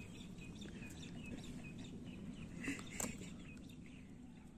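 Outdoor ambience of birds calling, with short repeated chirps and a couple of louder calls about three seconds in, together with one sharp click.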